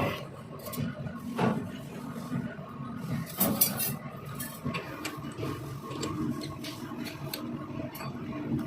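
Workshop machine motor running with a steady hum, with intermittent metallic clinks and knocks of metal parts or tools: a loud clink at the start, another about a second and a half in, and a cluster of sharper clinks about three and a half seconds in.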